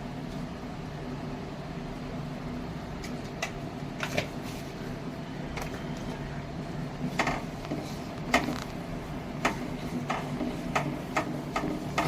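Spatula knocking and scraping against a pan while stirring the masala: irregular light clicks, sparse at first and more frequent in the second half, over a steady low hum.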